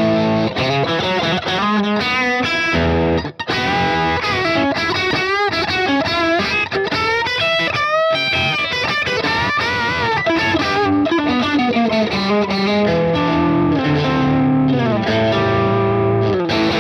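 Overdriven electric guitar playing a lead solo line, the notes sometimes held with vibrato, through a Boss IR-2 amp and cabinet simulator pedal set to its Marshall amp sound with the mids raised.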